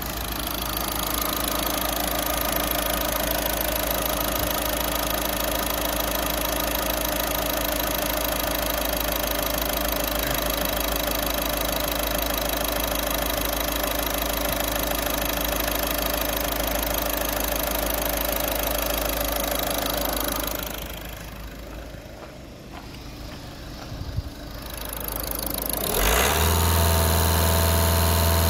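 Volkswagen Golf 6's 1.6 TDI (CAYC) four-cylinder common-rail diesel running at a steady idle. It goes quieter for a few seconds, then is revved up about 26 s in and held at a higher, louder note before starting to drop back at the end.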